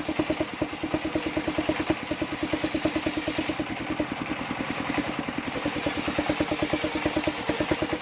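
Engine of a circular saw bench running steadily with an even pulse, about six or seven beats a second.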